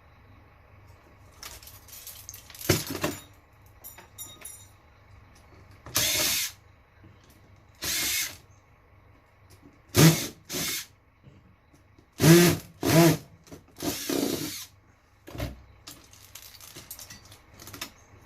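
Power drill-driver run in short bursts, about seven of them, each under a second long, with small clicks and clatter of handled parts before and between them.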